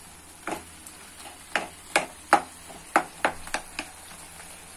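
Flat spatula knocking and scraping against a kadai while stirring chunks of tomato and onion: sharp, irregular clicks, roughly two or three a second.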